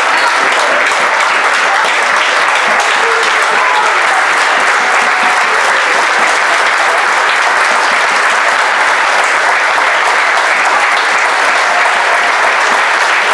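Steady applause: many hands clapping together in a dense, unbroken wash.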